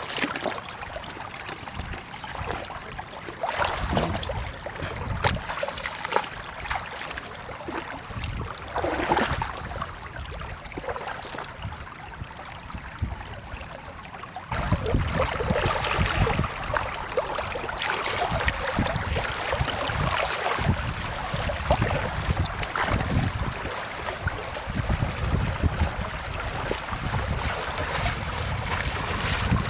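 Shallow floodwater trickling and splashing, with small scattered knocks. The sound gets louder about halfway through, with a low rumble added.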